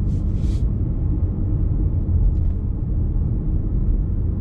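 Steady low road and tyre rumble inside the cabin of a Lexus RX 350 on the move, its tyres running on a freshly chip-sealed road. A brief soft hiss comes right at the start.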